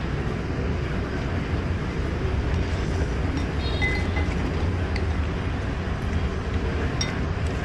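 Steady low rumble of street traffic, with a few light clinks of a spoon and chopsticks against a ceramic soup bowl, one of them briefly ringing about four seconds in.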